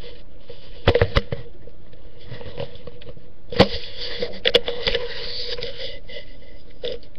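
Handling noise from a webcam being moved and repositioned, with sharp knocks and clicks: a quick cluster about a second in, a loud single knock about three and a half seconds in, and a few more just after, over a steady faint hum.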